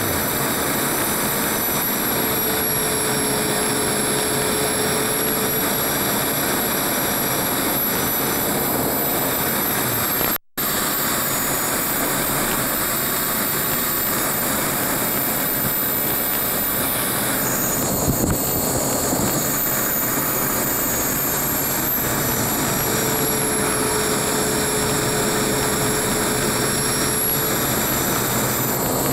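BD-5J's small turbojet running at taxi power, heard from on board: a steady rush with a high, thin whine that rises slightly about ten seconds in and sinks again about two-thirds of the way through. The sound cuts out for a split second about ten seconds in.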